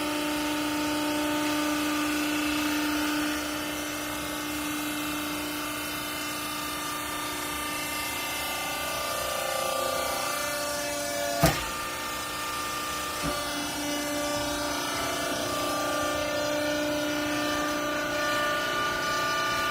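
Hydraulic clothes baler's pump motor running with a steady whine, its pitch shifting a few seconds in and again around ten seconds in. A sharp bang comes about eleven and a half seconds in, and a lighter knock about two seconds later.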